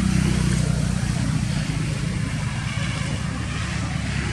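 A steady low hum of an engine running.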